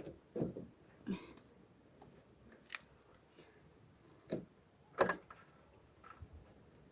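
A few scattered light knocks and clicks as a wooden block is handled and wedged under a metal bar, the sharpest knock about five seconds in.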